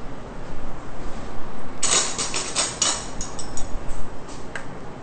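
Kitchen utensils clattering: a quick run of clicks and knocks starting about two seconds in and lasting about two seconds, then two more light clicks near the end.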